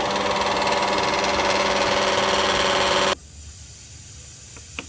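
Car air-conditioning compressor running with a loud, steady growl, the 'ngorok' noise of a faulty compressor. It cuts off abruptly about three seconds in, leaving a faint hiss and one sharp click near the end.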